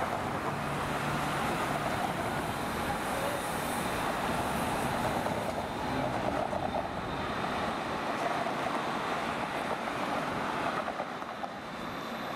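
Steady city street traffic noise as a light-rail tram rolls past through a junction, with cars passing close by.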